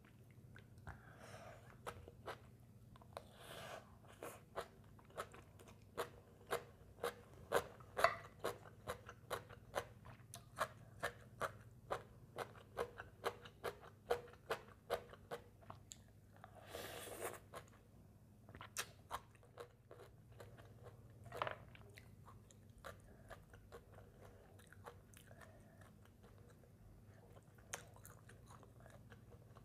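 Close-miked chewing of crisp raw green papaya salad: a run of crunches about two a second, thinning out in the second half, with one longer noisy mouth sound near the middle.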